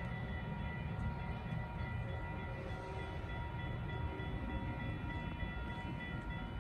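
Railroad grade-crossing warning bell sounding steadily over a continuous low rumble.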